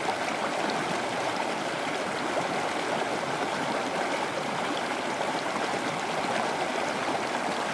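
Steady running-water noise, a continuous rushing and trickling with no change in level.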